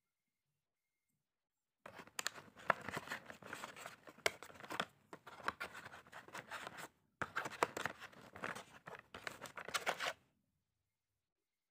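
Cardboard packaging rustling and scraping as a clipper blade and plastic guide comb are handled in the box insert, with many small clicks. It starts about two seconds in, breaks off briefly partway, and stops shortly before the end.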